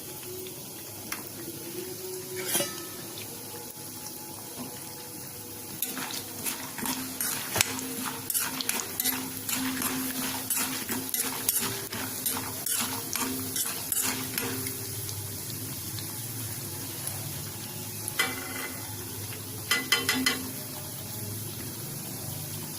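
Oil sizzling in a pan as a tadka of mustard seeds, cumin, chana dal and groundnuts fries, with a spoon stirring and knocking against the pan in quick runs of clicks from about six seconds in and again near the end. A low steady hum runs underneath.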